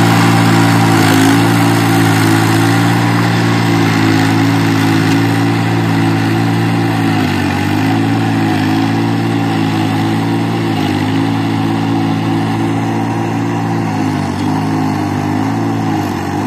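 VST Shakti mini tractor's diesel engine running steadily under load as it drives a rotavator through flooded paddy mud. Its speed dips briefly several times as it labours, then recovers.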